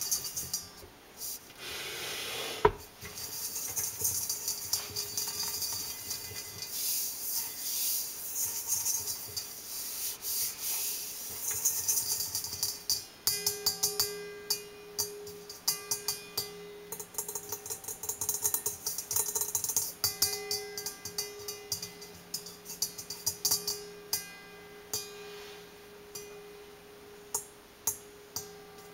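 Fingers and nails tapping, scratching and rubbing on the stainless steel bowl of a KitchenAid stand mixer: many quick light taps and stretches of rubbing, with one sharp knock about three seconds in. From about halfway on, the bowl rings with a steady tone under the taps.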